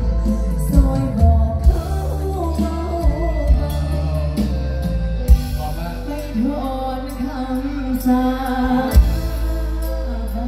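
Live mor lam stage music played loud through a PA system: singing over a band with a heavy, continuous bass line and a few sharp drum hits.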